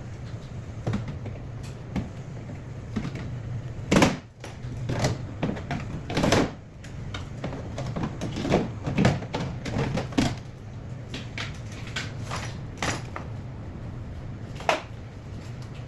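Irregular clicks and knocks of parts and tools being handled, the sharpest knock about four seconds in, over a steady low hum.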